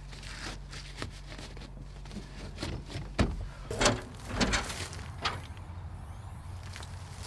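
Ute canopy side door being unlatched and swung up open: a handle lock clicking, then several sharp metallic clunks and knocks.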